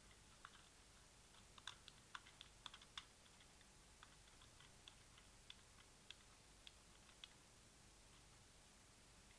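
Faint, irregular light clicks, a quick cluster in the first few seconds and then sparser: a wall clock's hands and movement being turned by hand to set the time.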